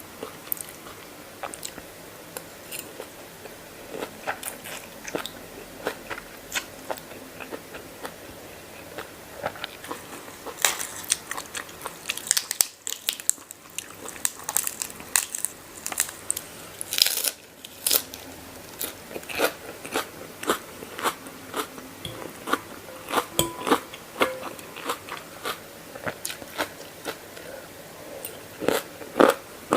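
A person chewing crunchy mee yum (Thai spicy noodle salad) close to the microphone: irregular crisp crunches, thickest in the middle stretch.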